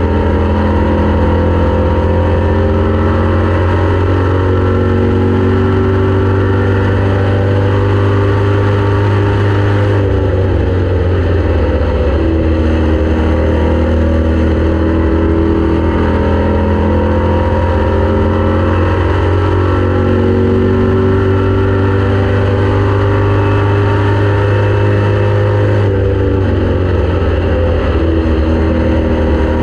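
Race car engine running hard at racing speed, loud and continuous, its note dipping and climbing back up twice as the throttle is lifted and reapplied.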